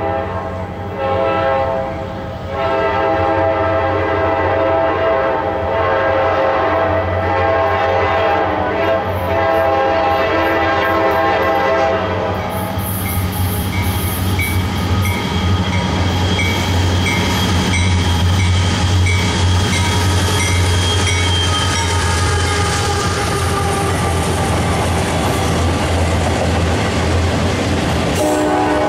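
A CSX freight train's locomotive horn blows a long chord, with a short break about two seconds in, as the train approaches. About twelve seconds in the horn stops and the locomotives, an SD40-2 and an ES40DC, go by with engine rumble and a bell ringing at a steady beat. Then the autorack cars roll past with steady wheel and rail noise.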